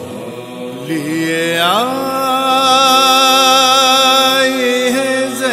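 A man's voice chanting a nauha, a Shia lament, unaccompanied. Just under two seconds in it glides up and holds one long note with vibrato.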